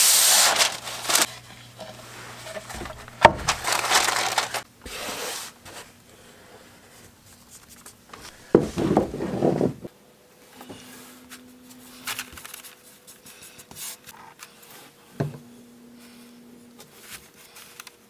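A sheet of paper pulled from a roll box and torn off, crinkling loudly at first and again in a couple of shorter bursts, with a few sharp knocks as things are set down on the bench.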